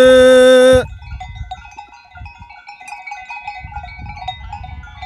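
Turkish folk song: a male singer holds the end of a line on one long, loud note that breaks off about a second in. A quiet instrumental interlude of quick, short melodic notes follows over a low rumble.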